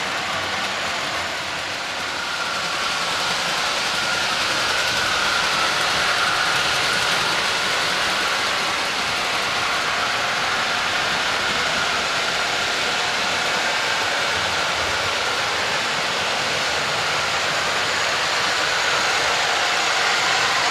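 Model trains running on the layout's track: a steady whirring of the small electric motors and the wheels on the rails.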